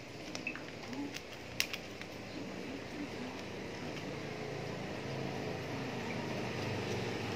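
A small knife clicking and scraping against a white plastic flower pot a few times in the first two seconds, as it is worked in at the pot's base to loosen an aglaonema's root ball. Under it a steady background rush slowly grows louder.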